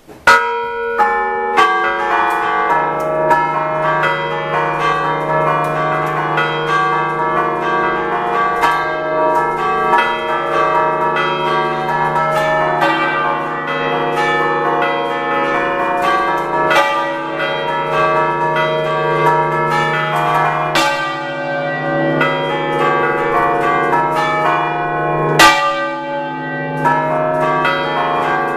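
A concerto of six church bells tuned in D, five cast by Picasso of Recco in 1905 and one in 1977, rung by hand 'a ducale' in the Ligurian manner for vespers. It is a fast, unbroken stream of overlapping bell strokes over a steady low hum, starting suddenly, with one especially loud stroke near the end.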